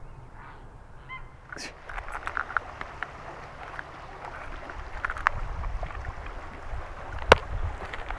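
Geese honking, two short calls in the first second or so. Then flowing stream water with scattered clicks and rattles from a plastic tackle box being handled, and one sharp click near the end.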